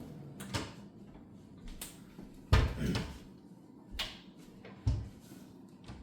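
Cupboard doors and household items being handled: a string of sharp knocks and clicks, with two heavier thumps about two and a half and five seconds in.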